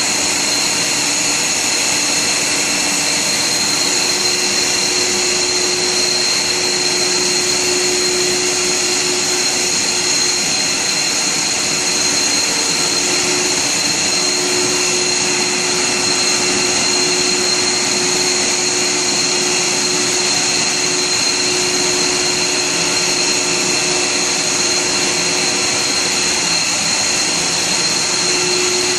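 HDPE silicon core pipe extrusion line running: a steady whir of the motors and water pumps on its vacuum cooling tanks, with several high, even whining tones over it.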